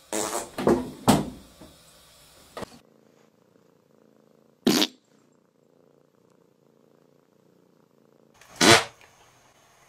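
Domestic cat purring in a faint steady drone, broken by a brief sharp sound around the middle and a louder short sound near the end. Several short loud knocks and scuffles fill the first few seconds.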